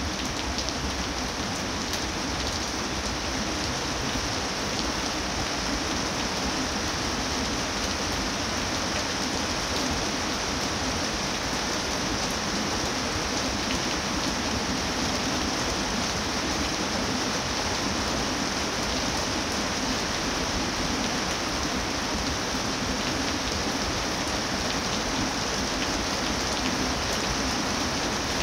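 Steady rain falling on foliage: an even hiss with countless small drops ticking through it.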